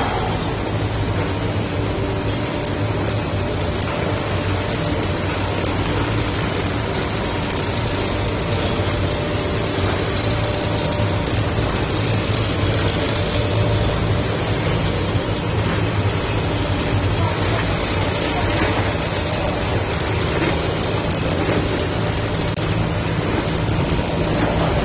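Three-layer air bubble film machine running in production, a steady mechanical hum of motors and rollers under a constant rush of noise.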